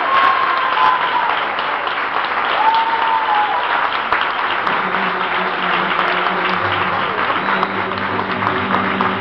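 Audience applauding steadily, with voices calling out twice in drawn-out shouts. About five seconds in, music with low sustained notes starts up beneath the applause.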